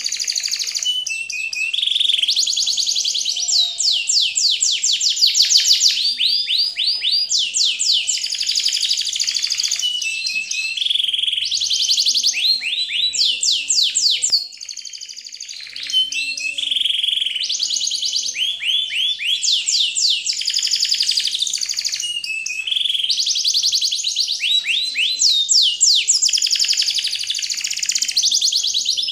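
Background music: a looping track of high, quick, rising chirping whistles that sound like birdsong, with the same phrases repeating about every fourteen seconds.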